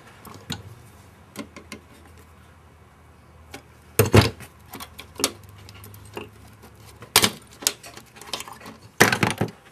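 Plastic keys being worked and popped off the metal key combs of a Sequential Circuits Prophet-5's Pratt-Read keyboard: scattered sharp clicks and clacks, with louder clatters about four, seven and nine seconds in.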